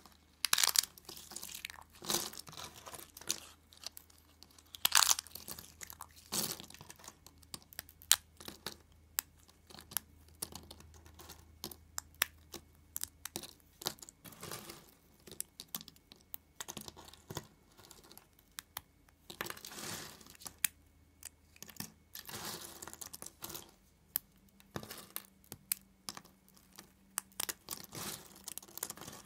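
Thin plates of laundry soap being snapped and crumbled by hand: dense, irregular crisp cracks and crunches, with the sharpest snaps in the first eight seconds or so.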